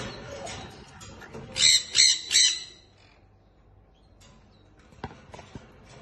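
Lovebird giving three quick, harsh squawks in a row, about a second and a half in, followed later by a few faint clicks.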